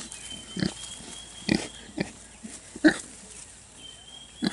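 Kunekune piglets giving short grunts, about four in all, the loudest about three seconds in.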